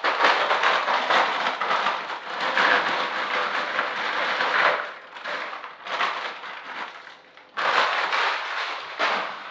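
Tortilla chips poured from a plastic bag into a bowl: the bag crinkling and the chips clattering and crackling for about five seconds, then a second loud burst of crackling near the end.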